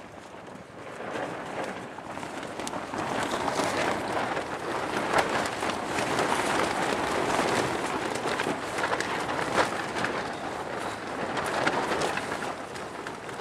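Tent walls flapping and shaking in strong gusts of wind: a loud, crackling rustle of fabric that builds about a second in and eases a little near the end.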